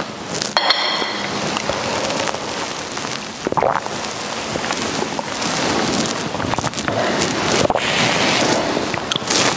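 Steady noisy hiss, with a brief ringing clink of metal or glass about half a second in.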